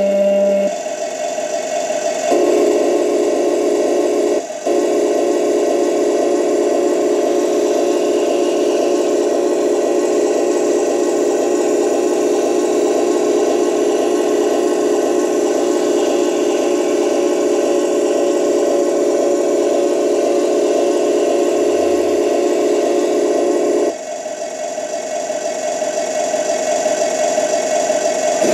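Simulated tank engine sound from the Torro Leopard 2A6 RC model's onboard sound unit, played through its small speaker: a steady running drone. It changes its note about 2 s in, cuts out for an instant about 4.5 s in, and shifts again near the end.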